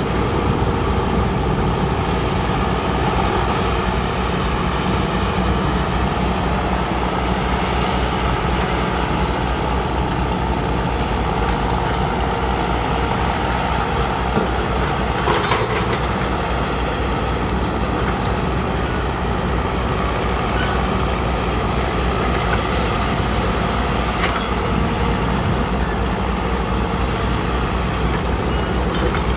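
Heavy diesel construction machinery running steadily, with one short knock about halfway through.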